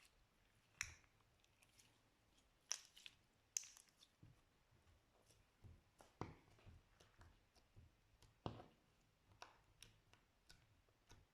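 Slime being squeezed and pulled by hand, giving irregular sticky pops and clicks.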